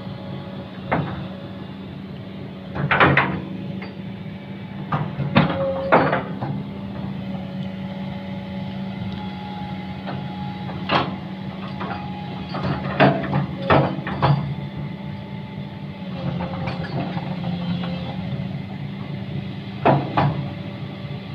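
An engine running steadily, with sharp knocks or clanks at uneven intervals, a few of them in quick pairs.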